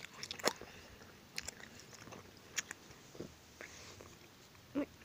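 Scattered faint clicks and crackles of plush toys being handled close to the phone's microphone, with a short squeak near the end.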